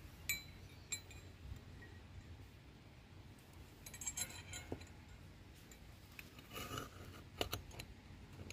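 Scattered light metallic clinks and small scrapes as steel rivet pins are pushed through the slots of a polished steel pickaxe head and a steel fixing plate is slid onto them. The first two clinks ring briefly.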